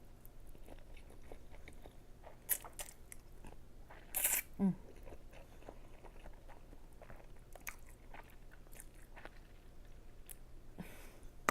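Close-miked chewing of chili ramen noodles: soft wet mouth clicks and smacks throughout. A short, louder noisy sound comes about four seconds in, followed by a hummed "mm".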